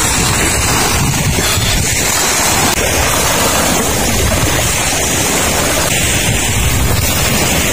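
Small waves breaking and washing up a sandy shore, mixed with steady, heavy wind noise buffeting the microphone.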